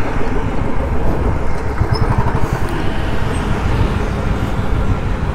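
Royal Enfield Classic 350's single-cylinder engine running at low speed as the motorcycle slows toward the curb, heard from the rider's seat.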